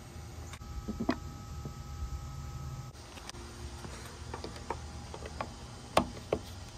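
A plastic knock about a second in as a roof rack cross bar is handled on the roof, then a run of light clicks and two sharper clacks near the end as a screwdriver-style torque tool turns the clamp screw in the bar's plastic foot.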